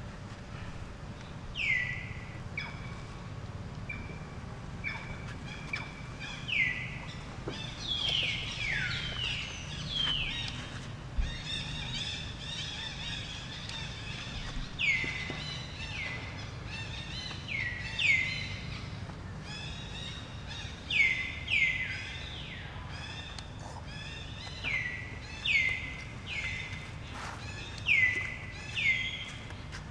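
Many short, high animal calls, each sliding quickly down in pitch, repeated and overlapping, coming more often in the second half, over a steady low outdoor rumble.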